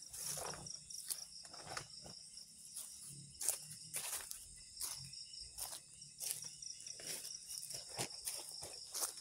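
A steady, high chirring chorus of forest insects, with scattered footsteps and rustling in the undergrowth as a person moves about.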